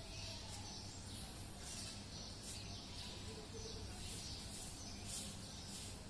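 Faint, scattered chirps of small birds over steady outdoor background noise with a low hum.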